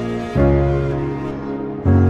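Background music: sustained chords, a new one starting about a third of a second in and another near the end.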